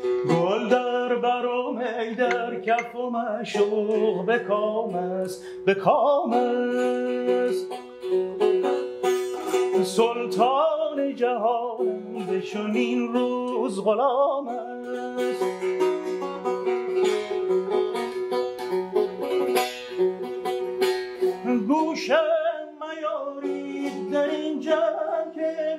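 A long-necked Persian lute played live and solo. Quick plucked melodic runs sound over a steady drone note.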